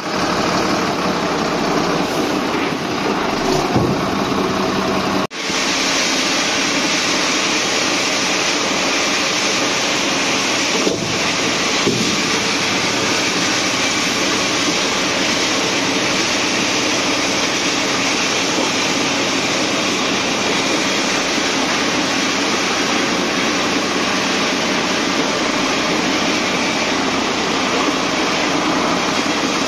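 Heavy diesel truck engine running steadily at a standstill. It cuts out briefly about five seconds in, and there are a couple of faint clicks around eleven and twelve seconds.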